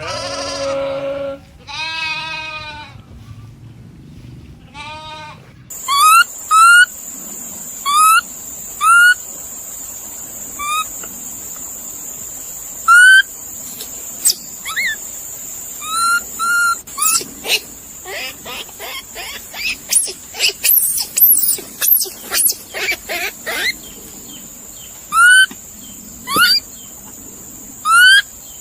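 Goats bleating for about five seconds. Then, after an abrupt change, a run of short rising chirp-like animal calls, roughly one a second with a rapid flurry midway, over a steady high hiss.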